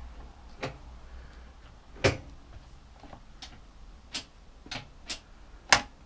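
About seven sharp clicks at uneven intervals, the loudest about two seconds in and just before the end: the ignition key switch of a Zontes Tiger 125cc motorcycle being turned through its off, ignition-on and lights-on positions to test the repaired switch.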